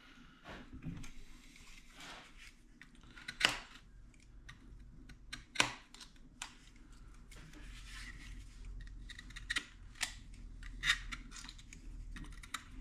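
Scattered light clicks and taps of wood handling: a wooden wedge being test-fitted into the kerf at the top of a wooden axe handle seated in the head. A couple of louder clicks come about three and a half and five and a half seconds in.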